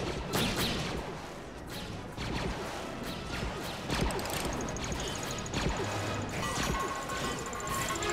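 Sci-fi film sound effects: a string of sharp blaster shots and impacts, then from about halfway a steady high electronic whine with a repeating beep as a grenade-like canister arms.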